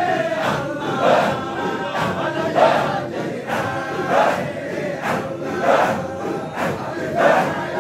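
A large crowd of men chanting dhikr together, many voices massed in a chant that surges in a repeating rhythm.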